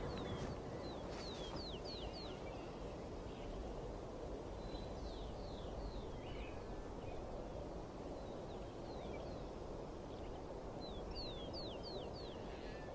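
A bird calling in runs of three or four quick, high, falling whistles, repeated several times, over a faint steady low background noise.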